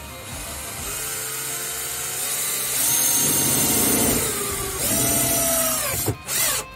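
Cordless drill boring a hole through a plastic car trim panel, the motor pitch rising and falling as the trigger is worked and the bit grinds through the plastic. It cuts out briefly about six seconds in, then runs again in short bursts.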